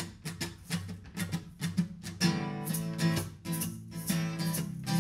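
Live band playing a song's instrumental intro, led by a guitar strummed in a steady rhythm. About two seconds in, the sound gets fuller and louder.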